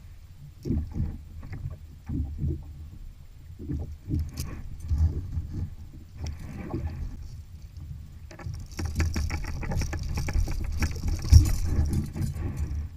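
Water sloshing and lapping around a kayak on the open ocean, with gusty low rumbles of wind on the microphone. About two-thirds of the way through, a stretch of busier splashing and clattering sets in and lasts a few seconds.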